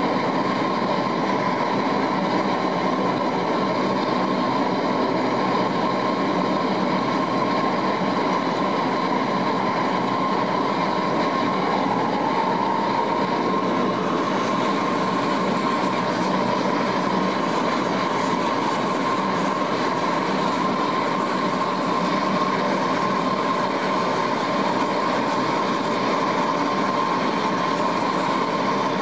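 Lockheed L-188 Electra's Allison 501 turboprop engines and propellers at takeoff power during the takeoff roll, heard from inside the cabin: a loud, steady drone with a high whine that climbs slightly about twelve seconds in.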